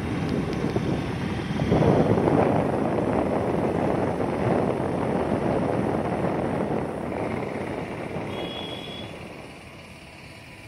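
Rushing noise of wind and a moving vehicle on the microphone while riding along an open road. It swells about two seconds in and fades away over the last few seconds.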